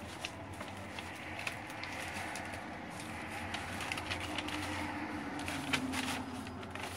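Clear plastic packaging crinkling and rustling as a folded fabric wind balloon is slid back into its sleeve, with many small ticks throughout. A faint low hum swells and fades near the middle.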